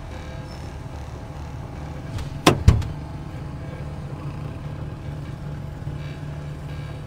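Car engine idling with a steady low hum. About two and a half seconds in come two sharp clunks in quick succession, as from a car door latch being opened.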